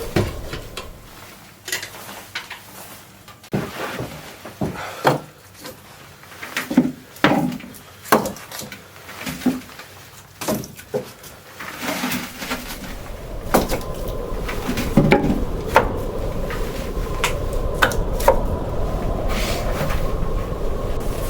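Irregular knocks and clatters of objects being handled in a small room, with wooden and kitchenware-like clunks. From about 13 s a steady background noise rises under the knocks.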